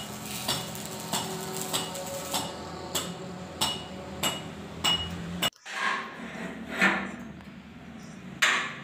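A hammer striking steel in repeated, evenly spaced blows, a little under two a second, each with a short metallic ring. The sound cuts out briefly about halfway through, and the blows come quicker near the end.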